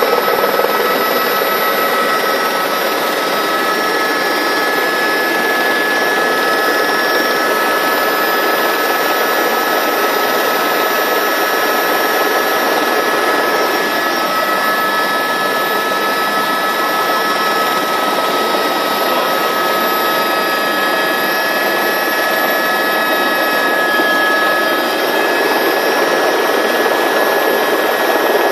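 Helicopter engine and rotor noise heard from inside the cabin: a loud, steady din with high thin whining tones over it. The whine shifts in pitch a little past the middle.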